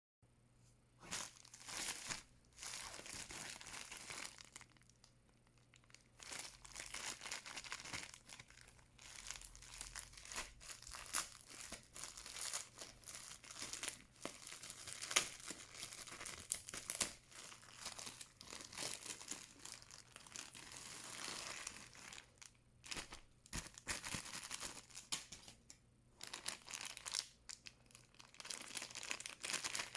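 Hands unwrapping a wristwatch's packaging: irregular rustling and crinkling of the wrapping, with a few short pauses.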